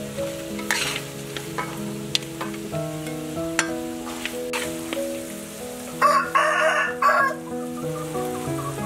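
Metal ladle scraping and clinking against a wok as stir-fried chicken is stirred and scooped out, with a rooster crowing loudly about six seconds in. Soft background music plays throughout.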